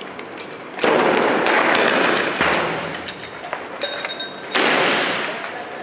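Two loud bangs about four seconds apart, each with a long rolling echo that dies away over a second or more: shots of the tear gas being fired into the village.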